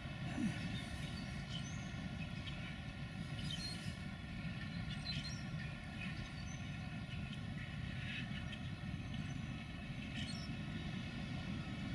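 Aberdeen and Rockfish Railroad freight train rolling slowly, a distant, steady low rumble. Faint high chirps come through now and then.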